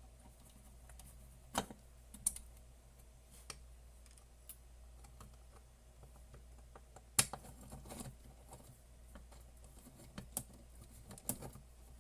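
Scattered clicks and light knocks of small hard parts being handled during a teardown, the loudest about seven seconds in, over a low steady hum.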